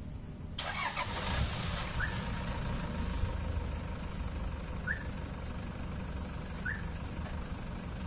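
Toyota Land Cruiser Prado engine remote-started from an aftermarket push-start alarm: it cranks and catches about half a second in, then settles into a steady idle.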